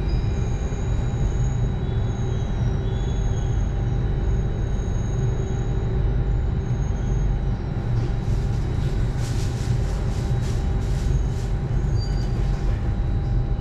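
Singapore MRT train running, heard from inside the passenger carriage: a steady low rumble of wheels on rail with a constant thin whine. Faint high wheel squeals come and go in the first half, and a run of short hissing, rattling strokes follows from about eight to twelve seconds in.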